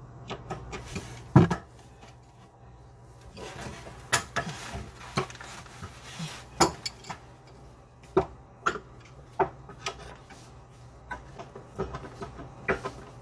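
Hand tools clinking and knocking against metal faucet fittings while a faucet is tightened down to the sink: irregular sharp taps and clicks, with one louder knock about a second and a half in.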